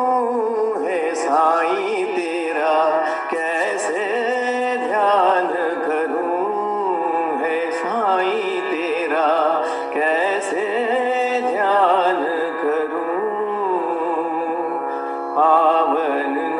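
Music of a Hindi devotional Sai bhajan: a melodic interlude between sung lines, its ornamented lines bending and wavering in pitch.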